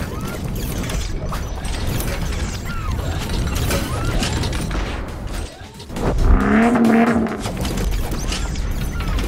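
Mechanical sound effects for an animated intro: dense clanking and ratcheting clicks over a low rumble, with a louder metallic swell that has a wavering tone about six seconds in.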